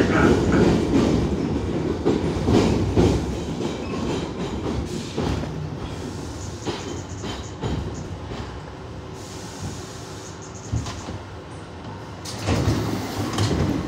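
R62A subway train running on the rails: a low rumble with wheels clicking over the track. The rumble dies down over the first several seconds, with a brief louder rush near the end.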